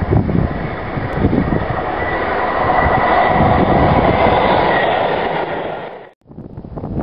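Class 158 diesel multiple unit passing close at speed: engine and wheel-on-rail noise builds to a peak as it goes by, with a steady high whine, and cuts off suddenly about six seconds in. Wind buffets the microphone at first.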